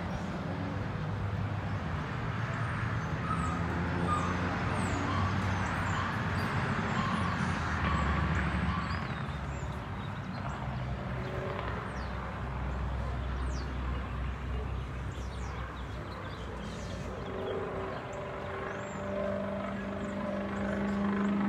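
Steady low rumble of a motor vehicle engine in the background, with faint bird chirps over it.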